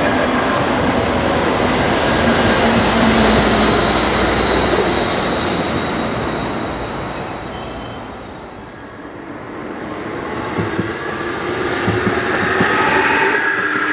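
Electric trains on the JR Kyushu Kagoshima Main Line: rail noise from an 885 series limited express passing and a commuter train running off, fading to a lull about two-thirds through. The noise then builds again as an 811 series electric train comes in alongside, its wheels squealing near the end.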